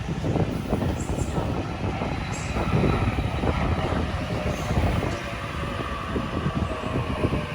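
Sydney electric double-deck passenger train running through the station, a heavy rumble with irregular wheel knocks over the rail joints and a faint steady high whine.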